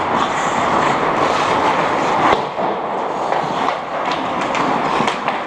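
Ice hockey play on a rink: skate blades scraping the ice over a steady hall din, with sharp stick-and-puck clacks, one a little after two seconds and several in quick succession near the end.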